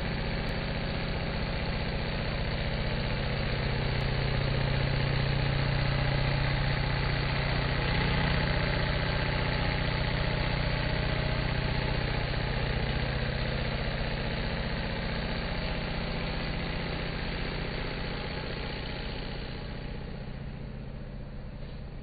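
Engine of a crawler-type compost turning machine running steadily, a continuous low hum that swells a little a few seconds in and fades toward the end.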